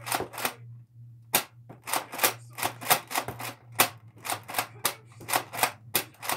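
Nerf N-Strike Raider CS-35 pump-action dart blaster firing repeatedly: a fast run of sharp plastic clacks and pops as the pump is worked and darts are shot, about three a second.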